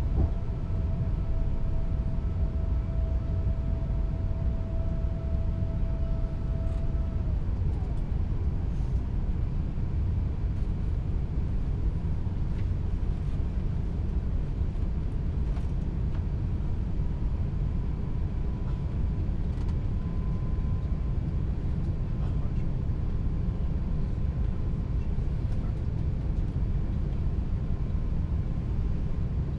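Steady cabin noise inside an Airbus A350 in flight with its landing gear extended: a low, even rumble of airflow and engines. A faint steady tone sits over it for the first several seconds.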